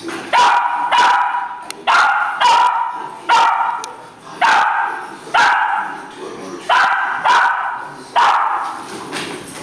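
A small dog barking over and over at a steady pace, about one sharp bark every two-thirds of a second, each bark fading before the next.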